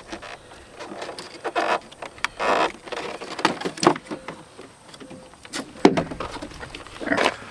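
Irregular knocks, clicks and short scrapes from a pickup truck's plastic interior door panel being worked loose and handled.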